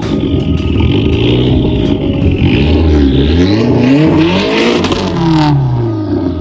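Car engines revving hard, the pitch climbing and dropping back several times.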